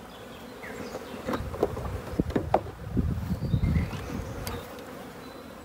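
Honeybees buzzing around an open hive, with a few sharp clicks and knocks and then a low rumbling of handling in the middle as the plastic hive-top feeder and the cover board are set on the hive.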